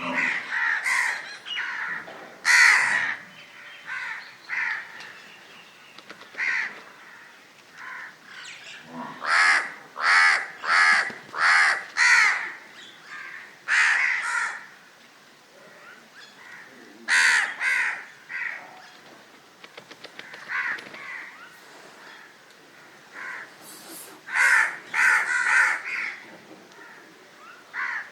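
Crows cawing repeatedly: short, harsh calls in quick runs of two to four, with pauses between runs.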